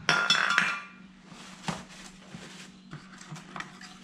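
VW engine lifters clinking against each other and the metal around them: a brief ringing metallic clatter, then a few light clicks.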